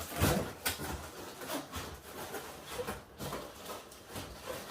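Cardboard packing being pulled and slid off the top of a large toy box: irregular rustling and scraping with a few light knocks.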